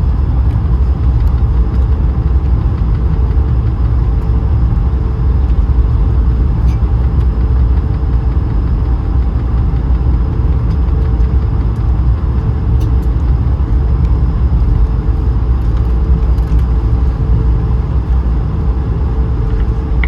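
Steady cabin noise inside an Airbus A220 airliner: a low rumble from its Pratt & Whitney geared turbofan engines and the airflow, with a steady hum over it.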